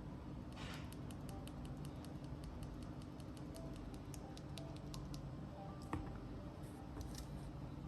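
Typing on a mechanical keyboard: a quick run of light key clicks, about six a second, for several seconds, then a few scattered keystrokes.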